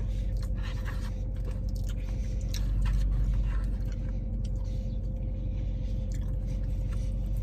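A man chewing a mouthful of KFC Chizza, fried chicken topped with pizza sauce and cheese, with many small wet mouth clicks, over a steady low hum in the car.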